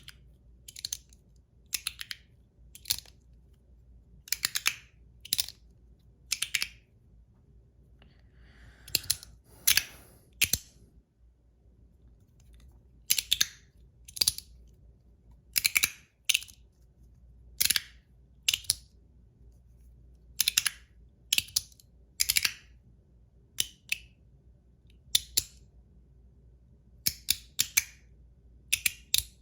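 Magnetic fidget slider (Ant Design S-Nano, zirconium) being slid back and forth by hand. Its magnets snap it to each end with sharp clicks, singly or in quick pairs, about once a second at an irregular pace.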